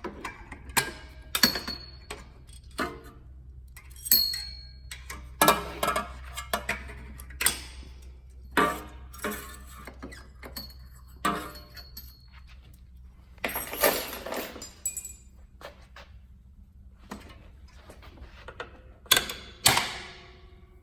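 Steel exhaust springs on a snowmobile's exhaust manifold being pried and pulled off with a hand spring puller: irregular sharp metal clinks and clanks, a few with a short ringing tone.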